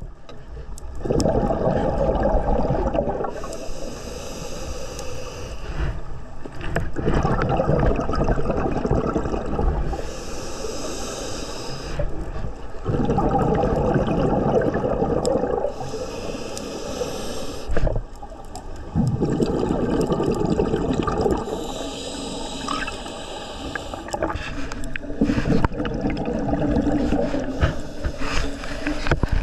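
Scuba regulator breathing heard underwater: a hiss as air is drawn through the demand valve, then a burbling rumble of exhaled bubbles, repeating in a steady cycle about every six seconds.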